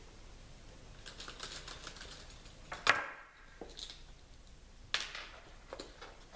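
Light clicks and taps of a wheel nut wrench and a scale RC wheel being handled as the wheel nut comes off: a run of small ticks, a sharper knock just before three seconds in, and another near five seconds.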